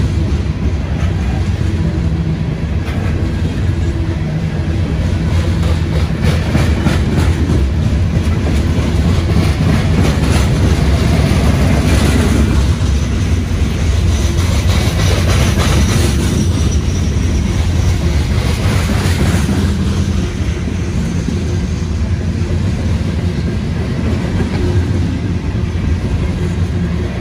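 Hopper cars of a CSX coal train rolling steadily past: a continuous low rumble of steel wheels on rail, with clicking and clatter over the rail joints.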